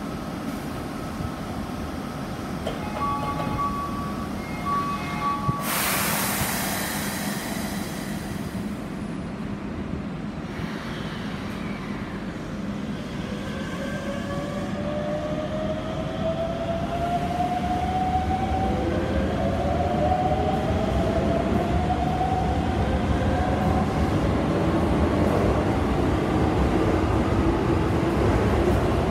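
A two-tone door chime, then a sharp hiss of air about six seconds in as the doors close. The Hokuso 7800-series electric train then pulls out, its traction motors whining upward in pitch in several steps as it accelerates, while the running noise grows louder.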